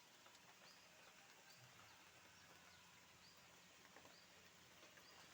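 Near silence: faint outdoor ambience with a small, high chirp repeating about twice a second.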